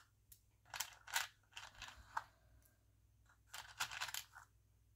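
Small plastic butterfly buttons clicking and rattling together in several short bursts as fingers pick through them in a compartment of a plastic organizer box.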